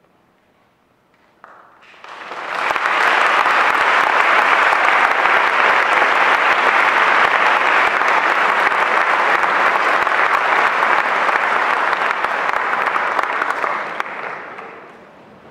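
Audience applause: after a second or two of quiet the clapping swells up quickly, holds steady, and dies away near the end.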